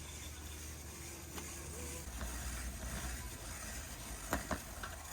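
Warehouse store ambience: a steady low rumble with faint distant voices, and two sharp clacks in quick succession a little over four seconds in.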